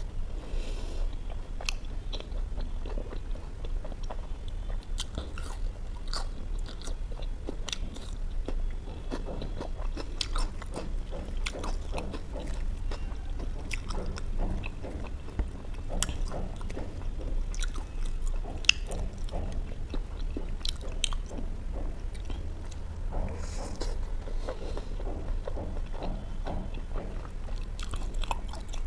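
Person chewing and biting butter chicken and naan, with many short sharp wet mouth clicks throughout. A low steady hum runs underneath.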